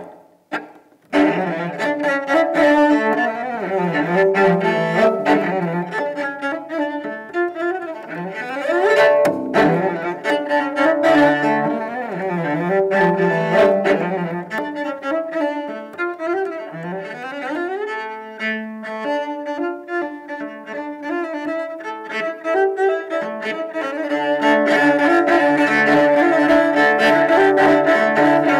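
Solo cello, bowed, playing a melodic line that starts about a second in, with slides between notes at times. The sound grows fuller and steadier near the end.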